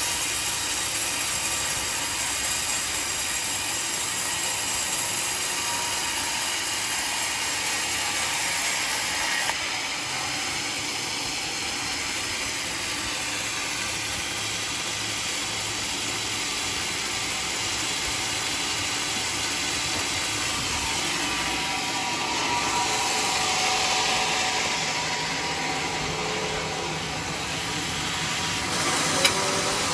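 Band sawmill running steadily as its blade cuts along a log, the tone shifting about ten seconds in and a few sharp knocks near the end.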